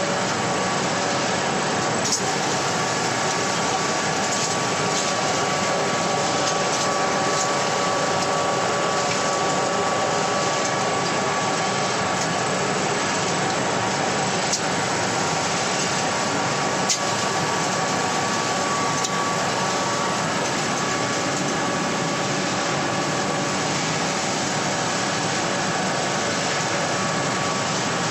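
Wood pellet mill running steadily: a loud, even mechanical noise with a faint steady whine and a few light clicks.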